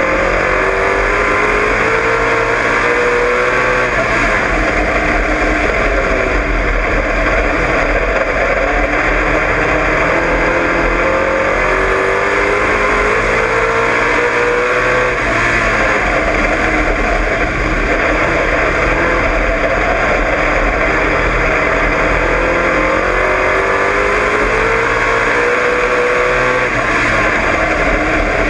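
Dirt-oval race car's engine at racing speed, heard from inside the car. It climbs in pitch three times, about every thirteen seconds, as the car accelerates down the straights, and eases off through the turns between, over steady rushing noise.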